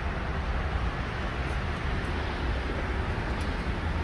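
Steady low rumble and hiss of vehicles, with no distinct events.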